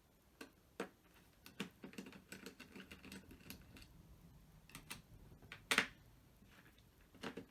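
Irregular small clicks and taps of a Torx driver and hardware being worked while the two bolts holding down a battery management board come out, with one sharper click about six seconds in.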